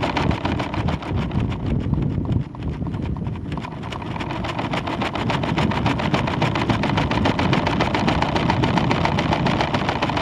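Fast, steady rattling clatter over a noisy rumble from the swinging weather balloon payload in flight, picked up through the camera's housing; it dips a little for a second or so about two and a half seconds in.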